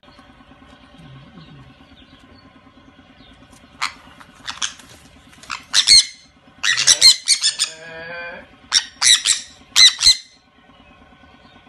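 Sun conures squawking: a run of loud, harsh screeches that starts about four seconds in, bunched in the middle and again near the end, with a lower wavering call between them, as the two birds play-fight. A faint steady low hum runs under it.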